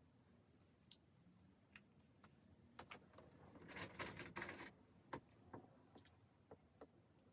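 Faint handling sounds: scattered light clicks and ticks, with a brief cluster of clicking and rustling about halfway through.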